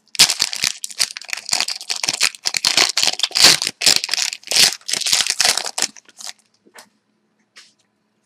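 Wrapper of a 2011-12 Panini Titanium hockey card pack being torn open and crinkled by hand, a dense crackling that stops about six seconds in, followed by a few faint ticks.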